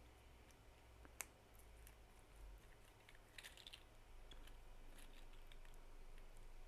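Faint clicks and small plastic snaps as the back legs of a 3D-printed articulated sloth are worked free of their raft and brim, with one sharper click about a second in.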